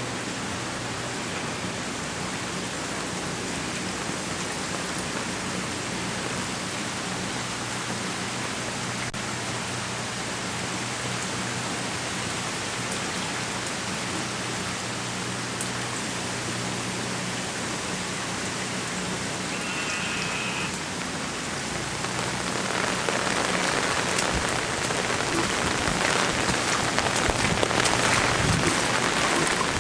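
Heavy hurricane rain falling steadily. It grows louder about two-thirds of the way through, with many close drops striking.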